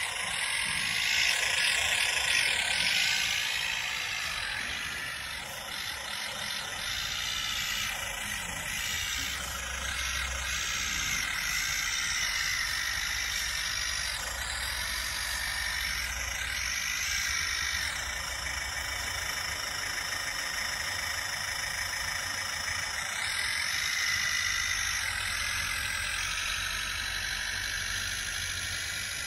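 Electronic engine sound module on a radio-controlled Massey Ferguson 185 model tractor, playing a simulated diesel tractor engine through its small speaker. It is revved louder a second or two in, then runs steadily as the model drives over loose dirt.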